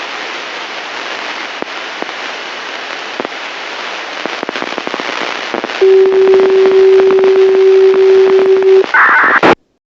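Radio-receiver hiss and crackle from a weak FM disaster-prevention radio signal, with much noise, just after the chime melody ends. About six seconds in, a steady single tone comes in louder for about three seconds. A short burst of noise follows, and then the signal cuts off abruptly.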